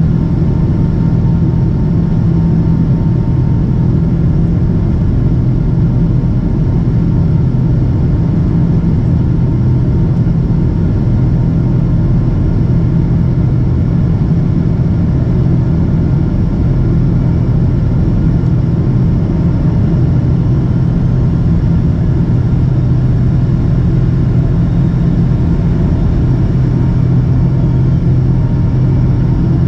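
Steady drone of a Boeing 777-200ER's jet engines and airflow heard from inside the passenger cabin: a loud low rumble with a constant hum, holding the same level throughout.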